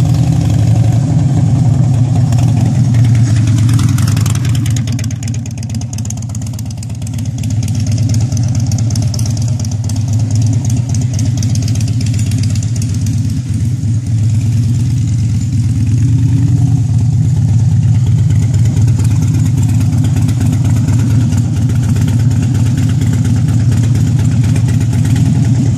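Harley-Davidson V-twin motorcycle engine running at idle and low riding speed, with a dip in level about five seconds in.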